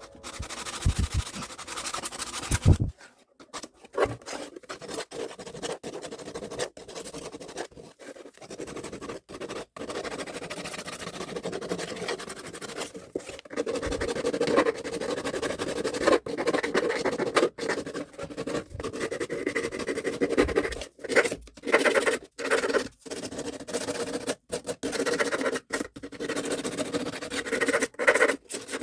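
Scratching and scraping from hands-on craft work, chopped into short pieces by many abrupt cuts.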